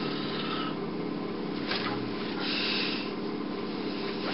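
Hand puppets being handled and moved, with faint rustling, a light tap about two seconds in and a brief rustle just after, over a steady low hum.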